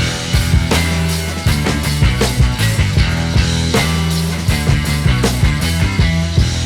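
Background rock music with drums, bass and electric guitar, at a steady beat.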